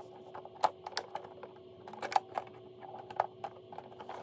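Hard plastic toy parts being handled and pressed onto a large plastic toy tank: scattered, irregular sharp clicks and taps, over a faint steady hum.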